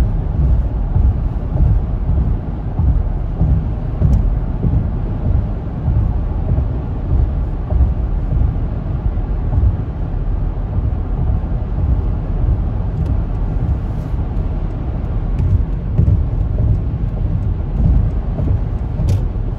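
Steady low road rumble inside a car's cabin while driving at highway speed.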